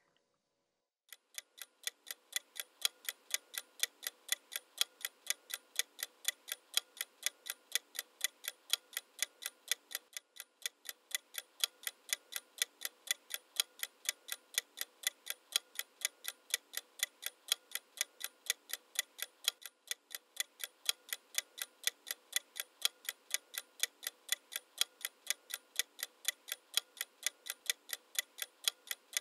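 Clock ticking sound effect: an even run of sharp ticks at about three a second, starting about a second in with brief breaks about ten and twenty seconds in. It serves as a countdown timer for recalling the phrases.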